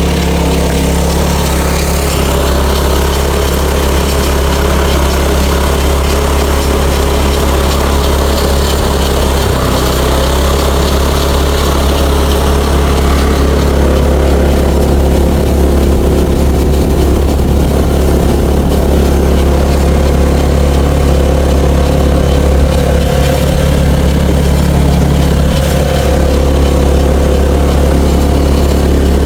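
Old chain-drive golf cart's small gas engine running steadily as the cart is driven, a low even drone.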